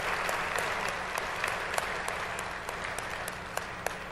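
Audience applauding and slowly dying down, with a few separate claps standing out as it thins toward the end.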